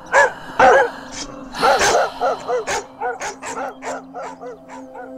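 A dog barking again and again: a few loud barks, then a quicker run of fainter barks, about three a second, that die away.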